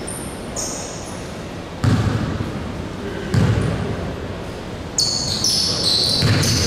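Basketball bouncing on a gym's hardwood court: three heavy, irregular bounces over about four and a half seconds, with sneakers squeaking on the floor, the squeaks thickest in the last couple of seconds.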